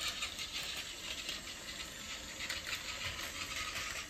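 Battery-powered Plarail toy shinkansen running on plastic track: a steady motor whir with light, rapid clicking and rattling from the wheels and cars on the track.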